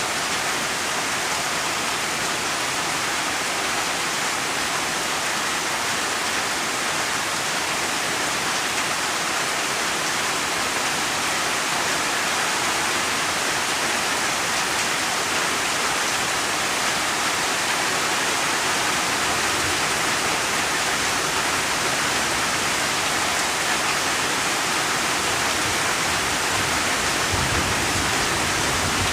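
Steady, even rain with no single drops or thunder standing out.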